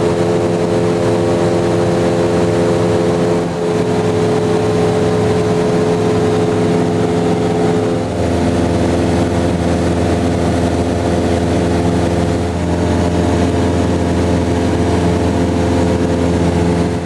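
Single-engine light aircraft's piston engine and propeller droning steadily, heard from inside the cabin in flight. About eight seconds in the tone shifts and a deeper hum comes in.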